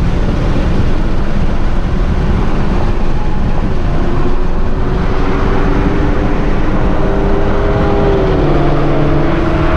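Car driving at highway speed, heard from inside the cabin: a loud steady rush of road and wind noise. From about four seconds in, a steady engine drone rises out of it.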